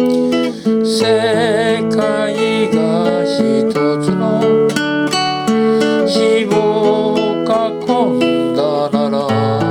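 Instrumental passage of a folk song: acoustic guitar strumming chords, with a melody line wavering in pitch over it about a second in.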